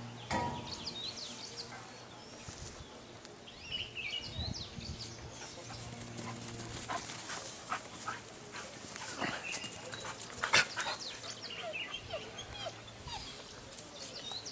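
A dog whimpering and panting, with high chirping calls and several sharp knocks; the loudest knock comes about ten and a half seconds in.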